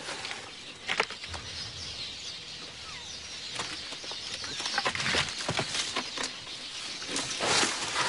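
Leaves rustling and branches cracking as elephants tear at a tree's foliage: a run of sharp snaps over steady rustling, the sharpest about a second in and more of them near the end.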